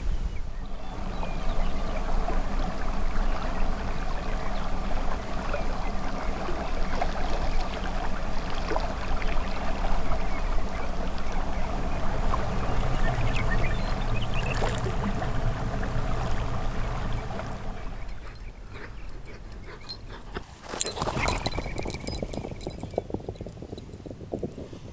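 Water bubbling and gurgling in a steaming geothermal creek: a dense run of small pops over a steady wash. It drops away about three-quarters of the way through, and a single sharp click follows.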